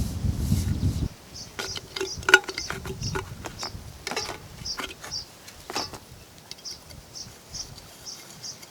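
Short high chirps repeating about twice a second, with scattered sharp clicks and knocks during the first half. A low rumble cuts off about a second in.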